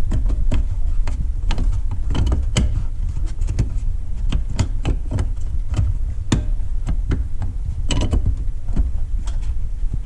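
Hands working a replacement headlight bulb into the back of a 2009 Mitsubishi Galant's headlamp housing in a cramped engine bay: irregular plastic clicks, taps and scrapes, over a steady low rumble.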